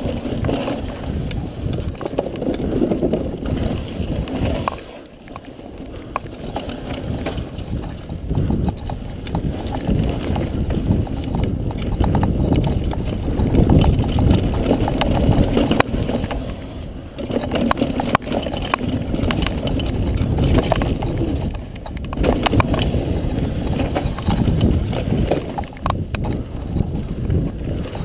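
Lapierre Froggy 518 mountain bike ridden fast down a dirt trail, heard from a camera on the rider: a steady rush of wind on the microphone and tyre noise, packed with rattles and knocks from the bike over bumps. The noise eases off briefly three times.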